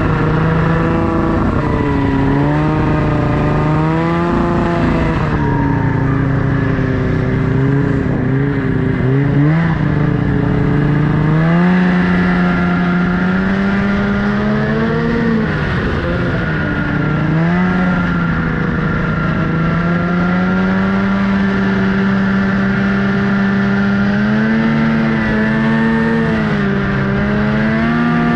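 Snowmobile engine running under load, its pitch rising and falling again and again as the throttle is worked, over a steady rush of noise.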